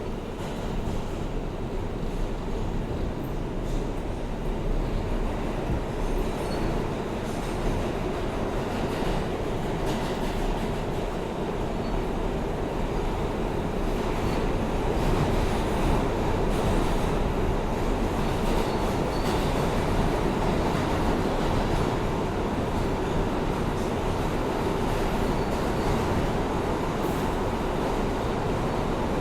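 New York subway R160A-2 car in motion, heard from inside: a steady rumble of wheels on rail and running gear that grows somewhat louder about halfway through.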